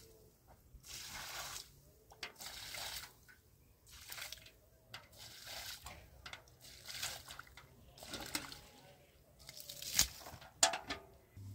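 Water splashed in short dashes from a metal bucket onto dry soil, several splashes a second or two apart, with two sharp knocks near the end.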